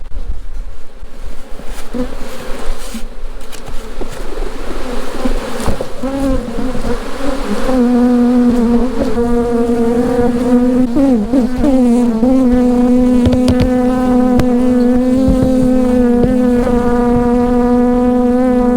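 Honeybees buzzing around an opened hive, with a few knocks from handling early on. From about six seconds in, one bee buzzes right at the microphone as a loud, steady hum whose pitch wavers briefly in the middle.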